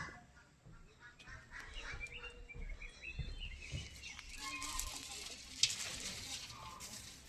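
Birds calling faintly, small chirps and calls, with one sharp click about three-quarters of the way through.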